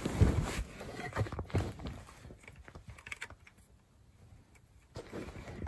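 Camera being handled: irregular knocks, taps and rustling, cut off by a second or so of dead silence a little past halfway, after which soft rustling resumes.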